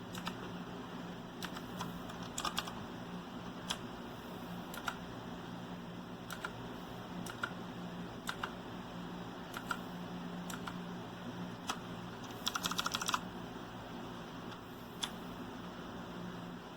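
Keys on an RK Royal Kludge S108 typewriter-style mechanical keyboard with clicky blue switches being pressed: scattered single keystrokes, then a quick run of rapid presses about twelve and a half seconds in.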